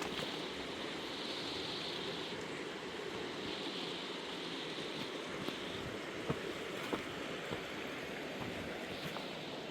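Fast-flowing mountain river rushing steadily, with a few faint knocks.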